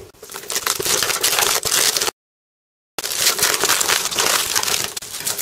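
Nylon cummerbund panel and gloved hands rustling and crinkling as the gear is handled and turned over. The rustling breaks off for about a second of dead silence a little after two seconds in, then carries on.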